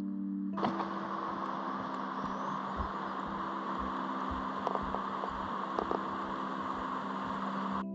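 Creek water rushing over rocks, a steady rushing that starts about half a second in and cuts off near the end. Under it, footsteps on a wooden footbridge thump about twice a second, with a few sharp clicks.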